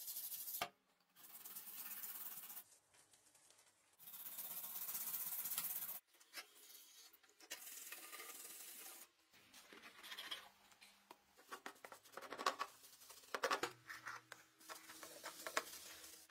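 Tap water running onto a cleaver in a stainless steel sink, in several separate spells of steady hiss. From about nine seconds in, a stiff brush scrubs the wet, rusty blade in irregular rasping strokes.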